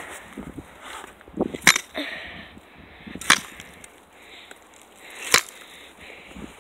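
A pole striking crusted ice and snow three times, about every second and a half, each a sharp knock breaking up the ice, with crunching in between.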